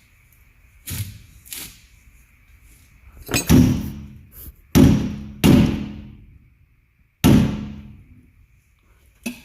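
Hammer blows on steel: about six sharp strikes at uneven spacing, the four from the middle on the loudest, each ringing briefly. This is hammering on a seized bolt, or on the hand impact driver set in it, to break the bolt loose.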